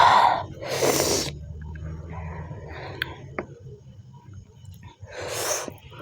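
A person breathing sharply in and out through the mouth after a bite of hot chili, loud hissing breaths twice near the start and again about five seconds in, with softer chewing sounds between.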